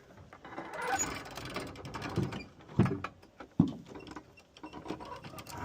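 Wall crank being worked to raise a framed wall, giving a run of small mechanical clicks and creaks, with two sharp knocks near the middle.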